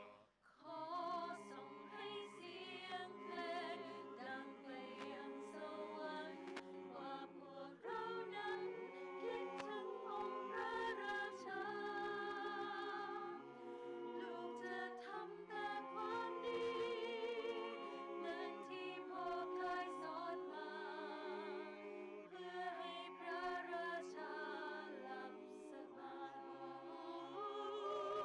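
A cappella choir singing in several-part harmony, long held notes with vibrato, starting about half a second in.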